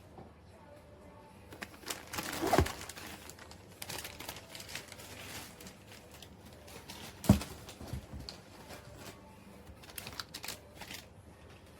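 Irregular rustling and clattering handling noises, with two louder knocks, one about two and a half seconds in and one about seven seconds in.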